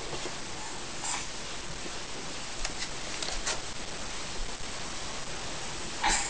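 Steady hiss of room noise with a few faint, short rustles, and a louder brief rustle near the end.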